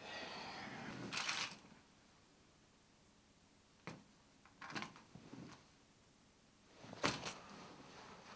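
Clothes rustling as someone shifts on a sofa, then a few separate light clinks and knocks of keys and remote controls being handled on a leather pouf.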